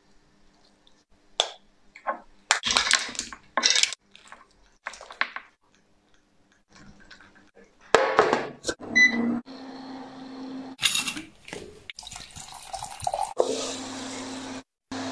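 Clicks and rustles of food being handled, then the lid of an electric countertop steamer shut with a clatter about eight seconds in and a short beep. The steamer then runs with a steady hum and a hiss of steam.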